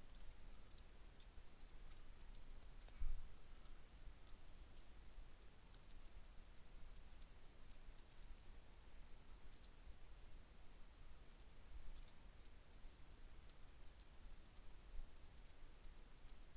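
Faint, irregular keystrokes on a computer keyboard as text is typed, with one louder low thump about three seconds in.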